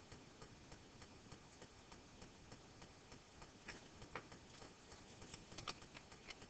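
Near silence: room tone with a few faint, irregular clicks, mostly in the second half.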